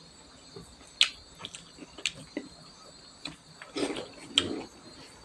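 Fingers gathering and pressing cooked rice on a steel plate: scattered sharp taps and clicks of fingertips and nails on the steel, with a louder bout of scraping and squishing about four seconds in.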